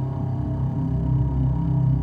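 Sequential Prophet X synthesizer playing a sustained low drone pad of several held tones.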